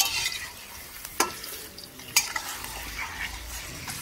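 Chicken pieces frying in oil in an iron karahi, with a steady sizzle, while a metal spatula stirs them and knocks sharply against the pan a few times, about a second apart.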